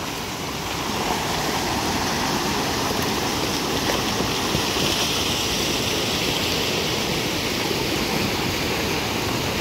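Floodwater rushing past: a steady, loud rushing noise of a flood torrent, a little louder after the first second.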